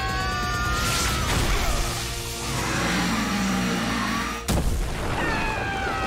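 Background score music with a single loud boom about four and a half seconds in: a cartoon impact effect of a heavy hammer blow striking an armoured creature.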